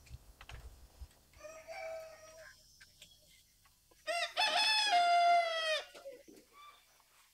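Rooster crowing twice: a shorter call about a second and a half in, then a longer, louder crow about four seconds in that rises, holds one pitch and falls away at the end.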